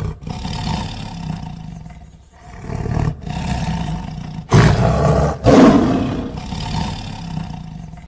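Tiger growling in long, low rumbles with short pauses between them, loudest just past halfway.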